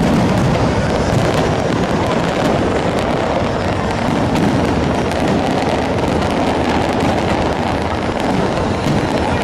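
Fireworks going off in a dense, continuous barrage: many overlapping pops and crackles at a steady loudness, with no single bang standing out.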